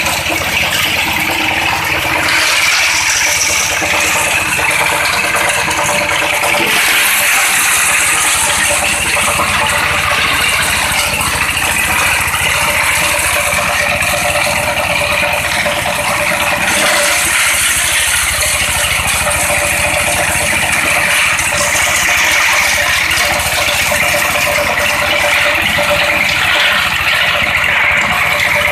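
Diesel-powered grinder, driven by a 16 hp Dompeng engine, crushing broken roof tiles: a loud, steady, dense rattle and clatter of tile fragments inside the machine.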